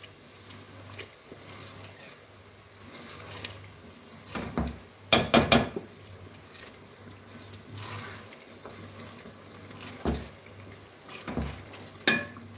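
Long wooden spoon stirring thick tomato sauce in a large aluminium pot, knocking and scraping against the pot's side and bottom in scattered short strokes. The loudest cluster of knocks comes about five seconds in.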